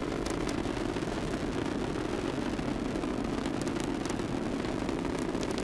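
Falcon 9 rocket's nine-engine first stage in flight, a steady low rumble with faint crackling now and then.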